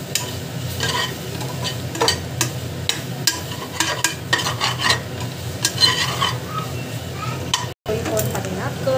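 Perforated metal spatula stirring and scraping onion-tomato masala around a metal pot, with frequent clicks of metal on metal over a light frying sizzle. The masala is being sautéed with freshly added chilli powder. The sound drops out for an instant near the end.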